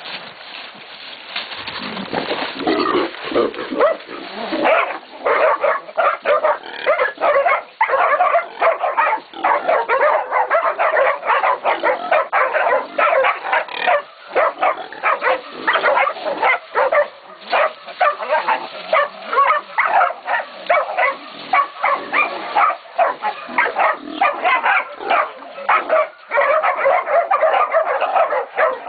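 Several young Catahoula and Black Mouth Cur pups baying a pig: fast, overlapping barking that builds over the first couple of seconds and then goes on without a break.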